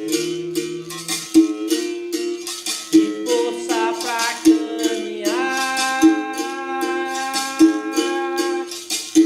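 Berimbau played in a steady capoeira rhythm, its struck string ringing on a strong beat about every second and a half with lighter strokes between, the caxixi rattle shaking along. A voice holds one long sung note through the second half.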